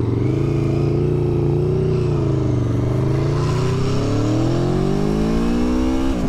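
Aprilia Tuono V4 Factory's 1100 cc V4 engine accelerating hard. The revs sag briefly, then climb steadily to a sharp drop at an upshift near the end.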